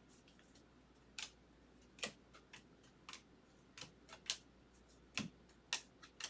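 Baseball cards being flipped through one by one, each card giving a short, sharp click or snap against the stack, about ten irregular clicks.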